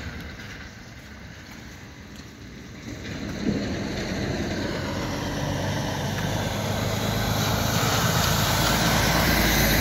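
A truck approaching on the road, its engine rumble and tyre noise growing steadily louder from about three seconds in and loudest near the end.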